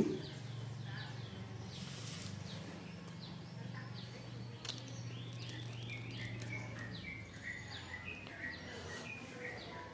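Birds chirping in quick runs of short, falling notes, over a low steady hum that stops about seven seconds in.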